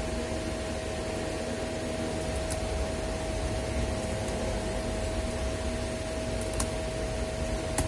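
Steady hum and whoosh of an electric room fan with one constant tone, and a few faint clicks as a 2.5-inch SSD is handled and pressed into a laptop's drive bay.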